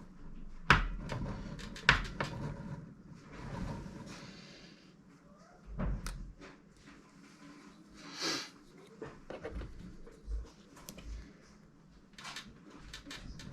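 Scattered knocks and clacks of hard objects being handled, with two sharp ones in the first two seconds and a short hiss about eight seconds in.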